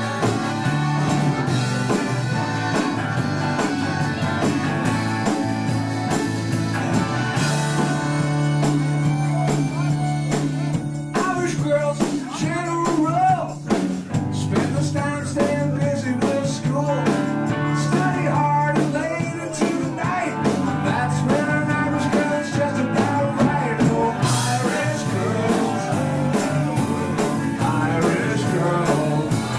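Live band playing a song: a piano accordion over a steady beat, with a singing voice coming in about eleven seconds in.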